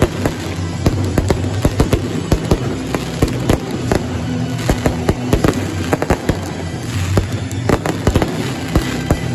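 Fireworks display: aerial shells and crackling stars bursting in a rapid, irregular barrage of sharp bangs, several a second, over music with steady low notes.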